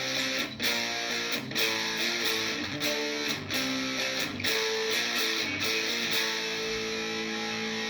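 Epiphone SG Modern Figured electric guitar strumming a chord progression through an amplifier, with its pickups coil-split to single coils and the phase switch off; the last chord is left ringing from about six seconds in.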